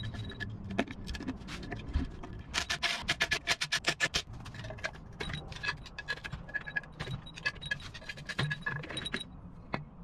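Metal tool clicking and clinking against the finned oil sump of an air-cooled Volkswagen engine as the sump is worked off. A fast run of clicks comes a few seconds in, and scattered clicks follow.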